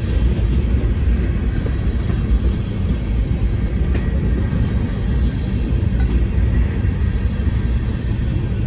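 Covered hopper cars of a grain train rolling past, a steady low rumble of steel wheels on rail.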